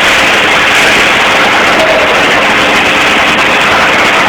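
Electric arc welding: the arc crackles and sizzles as a loud, steady, unbroken noise.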